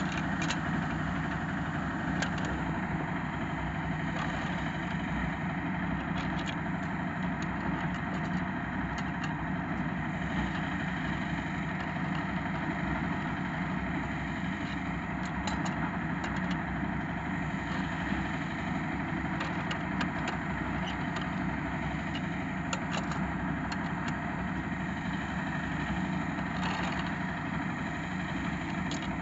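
An engine idling steadily, with now and then a faint click of steel rebar being bent on a wooden jig.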